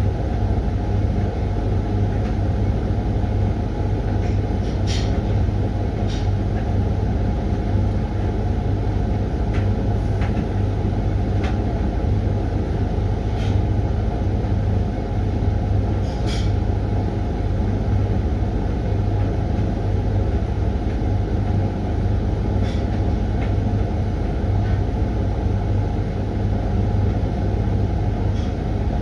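Hoover washing machine running on its Refresh programme: a steady motor hum and drum rumble with no pauses, and a few light clicks scattered through it.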